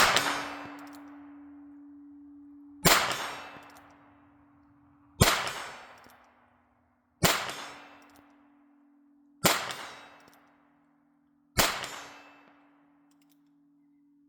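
Six shots from a Heritage Rough Rider .22LR single-action revolver, spaced about two seconds apart, each a sharp crack with a trailing echo.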